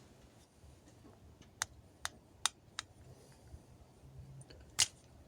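A few sharp, light clicks from a small plastic switch and its parts being handled: four in quick succession, then a louder one near the end.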